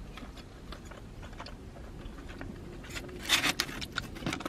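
Close-up mouth sounds of someone chewing a corn dog nugget, with small wet clicks. About three seconds in there is a brief, louder burst of rustling and scraping.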